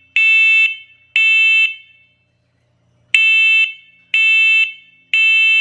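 First Alert 10-year smoke and carbon monoxide alarm sounding loud, high-pitched half-second beeps in the three-beep temporal pattern: two beeps, a pause of about a second and a half, then three more. The three-beep pattern is the alarm's smoke/fire evacuation signal.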